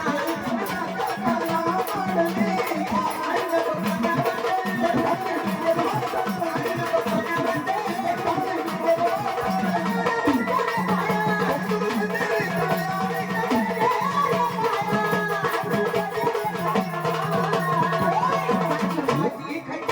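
Marathi devotional folk song about Krishna, sung by a woman over drum percussion, with steady sustained instrument tones beneath the voice.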